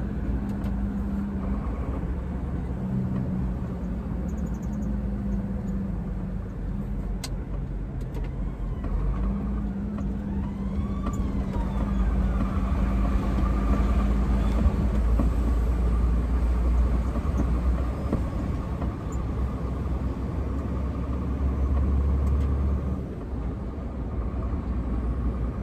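Iveco truck's diesel engine and road noise heard from inside the cab while driving, a steady low hum and rumble that grows a little louder from about halfway.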